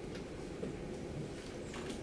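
Dry-erase marker writing on a whiteboard: a few short scratchy strokes, one just after the start and a quick cluster near the end, over a steady low room hum.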